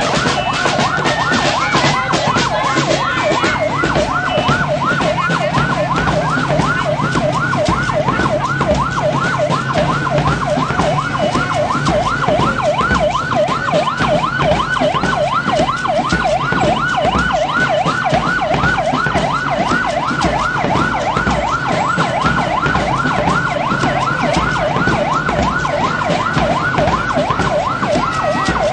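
A loud yelp-style siren, its pitch rising and falling about three to four times a second without a break, over a noisy background full of sharp clicks.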